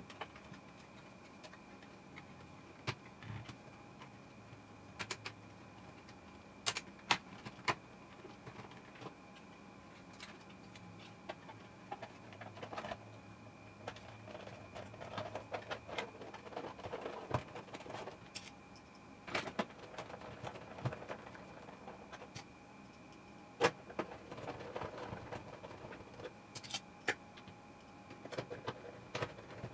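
Scattered plastic clicks, taps and rustling as an AKAI RL-KL710 standby lamp is handled and its plastic housing is fitted and pressed back together, with a faint steady high tone underneath.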